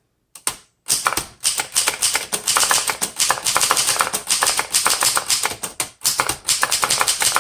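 1938 Remington Portable Deluxe manual typewriter being typed on: a few single keystrokes, then fast, continuous key strikes from about a second in, with a short pause near six seconds.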